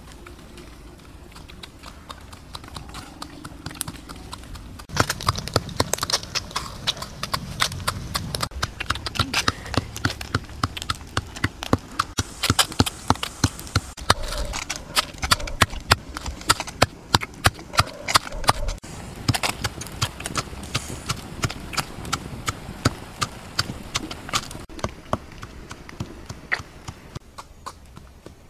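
Beaten egg frying in a black iron wok, spitting and popping in a dense crackle of sharp clicks. The crackle starts suddenly about five seconds in and dies down near the end.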